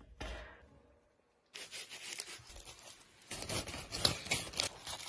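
A brief scrape as a large metal lid is set on a stone oven, then dense crackling and tearing as a knife carves through a crisp-skinned roast bird lying on crinkling foil.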